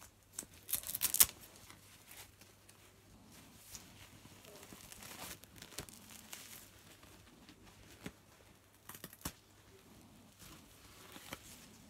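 Short tearing and crinkling noises of a disposable nappy and baby clothes being handled and unfastened, loudest in a quick cluster about a second in, with another cluster near nine seconds.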